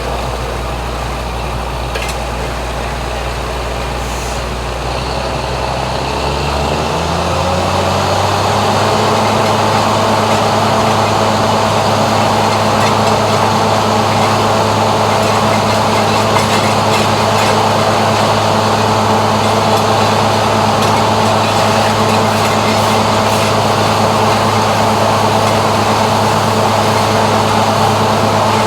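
Engine of a heavy boring machine running steadily at low speed, then revving up over about two seconds, roughly six seconds in, and holding a higher, louder steady speed.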